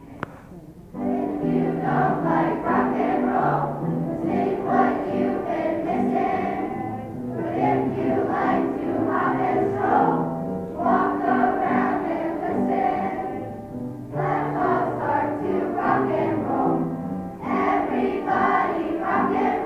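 A large children's choir singing. The singing starts about a second in and goes in phrases with brief breaks between them.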